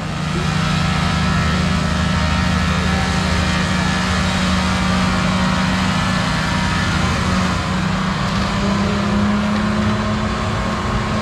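Large diesel engine of heavy logging equipment running steadily under power, its tone shifting slightly upward past the middle.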